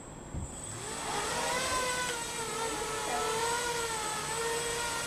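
Electric motors and propellers of a 3D-printed Y4 quadcopter spinning up about half a second in, then running with a steady whine whose pitch wavers slightly as the motors hold speed. A brief low thump comes just before the spin-up.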